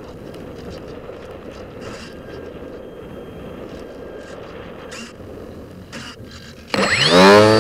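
Steady rushing air noise with a few light clicks, then near the end the Radian Pro's brushless electric motor and propeller spool up abruptly, a whine rising quickly in pitch and settling into a loud steady drone as the glider powers into a climb.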